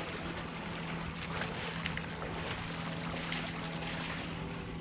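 Shallow water sloshing and splashing as a person wades ashore carrying a wet cast net, with wind noise and a steady low hum underneath.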